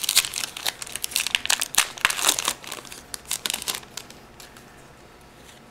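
Foil wrapper of a Pokémon booster pack crinkling as the pack is opened and the cards are pulled out, for about the first three seconds. Then it dies down to a few faint ticks as the cards are handled.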